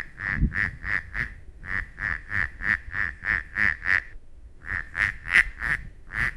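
A duck quacking in a fast, even run of about three quacks a second, pausing briefly about four seconds in before carrying on.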